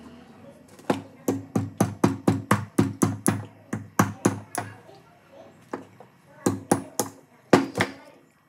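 A small hammer tapping a nail held against an egg resting on a wooden block: rapid light strikes, about five a second, in one long run and then two shorter runs, each tap ringing briefly through the wood.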